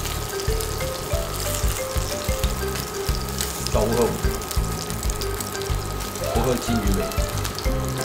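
Fried small fish sizzling in hot fat in a frying pan, a steady fine crackle as the pieces are lifted out, over background music with a steady beat.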